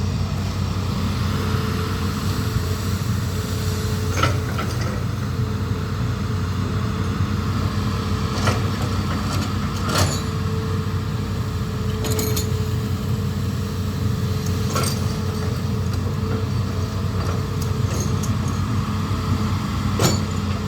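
Amphibious excavator's diesel engine running steadily, with sharp knocks or clanks every few seconds.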